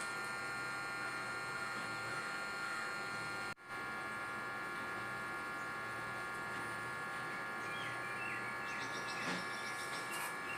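Steady electrical hum made of many fixed tones, cutting out for an instant about three and a half seconds in. A few faint short chirps sound near the end.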